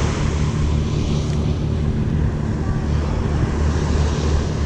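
Wind buffeting the microphone in a steady, fluttering low rumble, with surf washing on the shore behind it.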